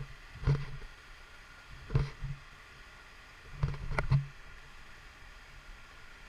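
A series of short, dull knocks: one at the start, one about half a second in, a pair around two seconds in and three in quick succession around four seconds in, over a faint steady hiss.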